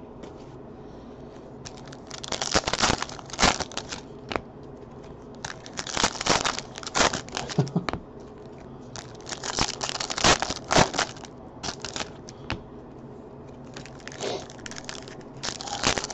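Foil wrappers of Topps Chrome football card packs crinkling and tearing as the packs are ripped open by hand, in about five bursts separated by quieter pauses.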